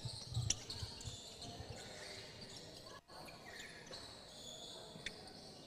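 A basketball bouncing a few times on a hardwood court, mostly in the first second, with one more bounce about five seconds in, over the murmur of a crowd in a large hall.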